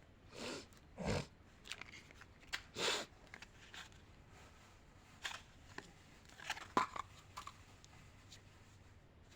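Candy packaging being handled: scattered crinkles, rustles and light taps, a handful of separate short bursts.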